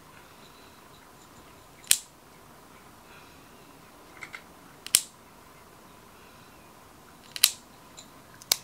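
Small pet nail clippers snipping a cat's claws: four sharp clips, about two to three seconds apart, with a few faint ticks of the clipper being placed near some of them.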